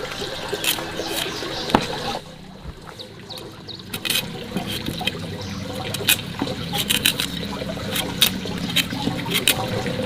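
A cleaver cutting into and prying the peel off raw cassava roots: irregular short scrapes and crisp clicks of the blade on the root, over a steady background hiss.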